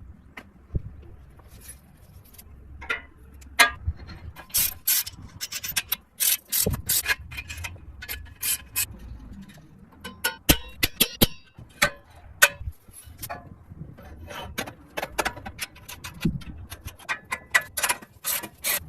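Hand-tool work on metal parts: irregular sharp clicks and knocks mixed with short scraping and rubbing strokes.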